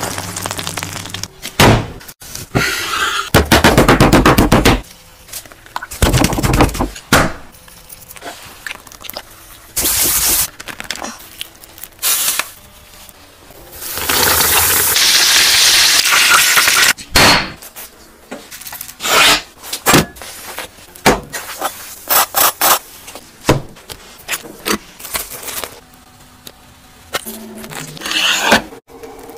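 Close-up cooking sounds: a run of short, separate scraping and handling strokes as a burger is pressed and handled, with a few seconds of steady sizzling from a breaded cutlet frying in hot oil around the middle. A knife cuts through the burger near the end.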